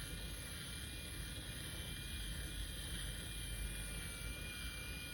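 Steady low mechanical hum with a faint, constant high whine, unchanged throughout.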